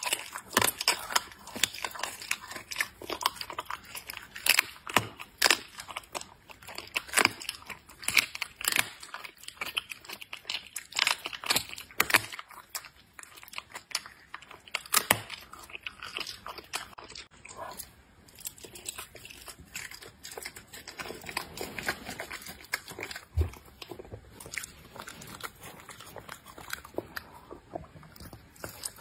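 Leopard cub eating raw meat from a dish: wet, irregular chewing, licking and biting smacks, frequent in the first half and sparser later.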